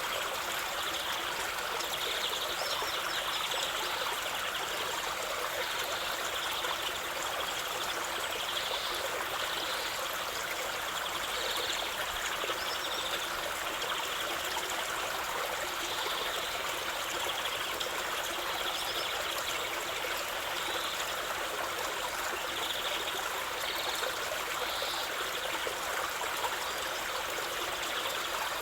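A stream of running water, a steady even rush and trickle.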